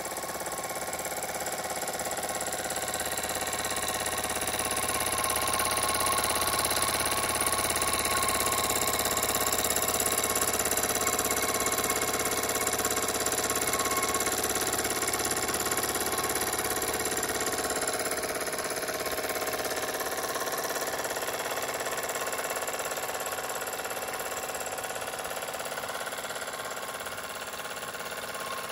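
Jensen 25GR live-steam model engine running steadily on its first steaming, a fast, even mechanical beat over a steady whirr, its belt driving a small generator.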